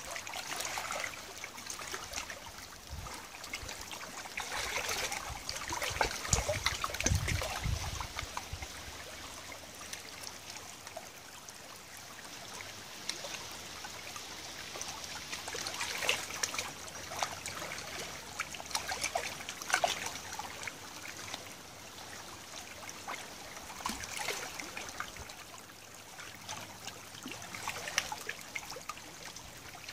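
Tidal river water trickling and lapping among the stones of a gravel bank, a steady wash scattered with small, irregular splashes and drips.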